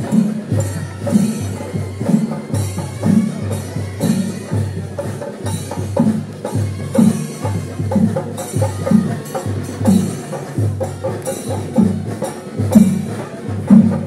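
Loud music with a steady percussion beat: regular low drum strokes with sharp clicks over a held low tone.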